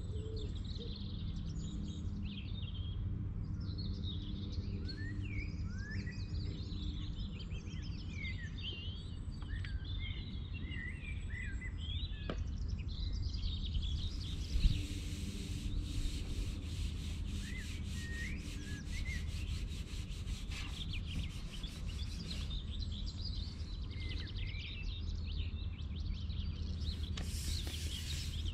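Small birds chirping and singing over a steady low outdoor rumble. About halfway through there is a thump, then several seconds of rubbing and a rapid run of ticks close to the microphone.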